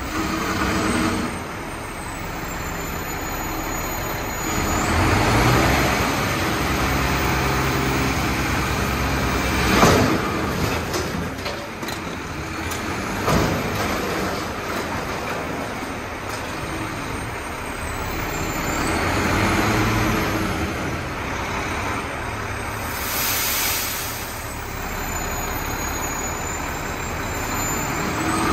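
Mack TerraPro front-loader garbage truck running its hydraulic lift arms to raise a full dumpster over the cab, the engine speeding up and easing off twice as the arms work. Two loud bangs come a few seconds apart as the dumpster is tipped and emptied into the hopper, and a short hiss of air follows later.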